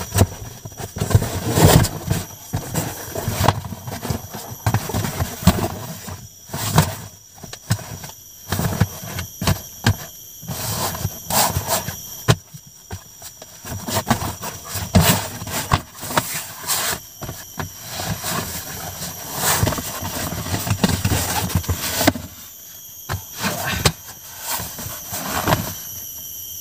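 A camping sleeping mat being unrolled and laid out by hand: irregular rustling, scraping and handling noises following one another with short pauses.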